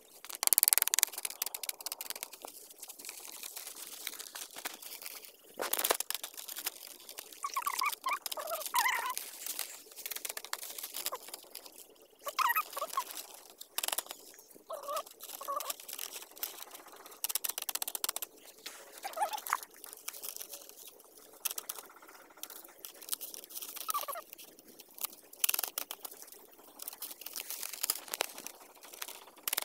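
Dry split-bamboo strips clicking, tapping and rustling against each other as they are woven by hand into amakan matting. Chickens cluck in short bursts several times.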